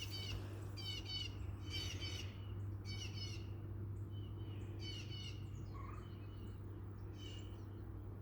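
Wild songbirds chirping: clusters of short, high, falling notes about once a second, with a brief lull midway, over a steady low hum.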